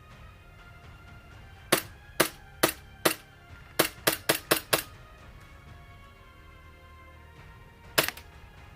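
Airsoft gun firing single shots: four sharp cracks about half a second apart, then a quicker run of five, and one more near the end. Background music plays underneath.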